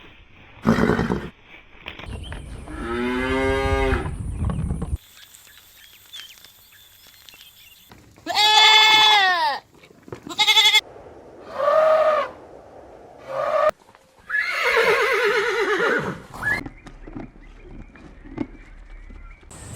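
A string of separate farm-animal calls, about seven in all, some brief and some drawn out for a second or two, each with a wavering pitch and cut in from different recordings.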